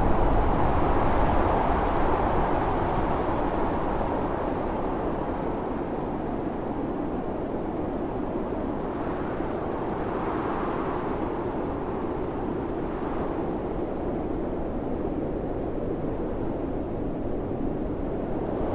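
Blizzard wind blowing in gusts: a steady rushing noise that is loudest at the start, eases off, and swells again near the end.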